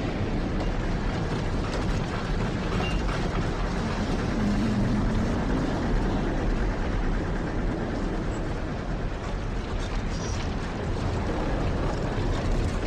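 Sound effect of a tornado: a steady, rumbling roar of wind, heaviest in the low end.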